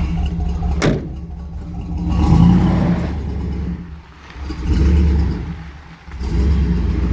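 1971 Chevy C10's 350 small-block V8 running and being revved, the engine note rising and falling about three times. A sharp click just under a second in.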